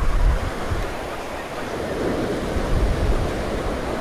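Ocean surf breaking and washing up the beach, with gusts of wind rumbling on the microphone.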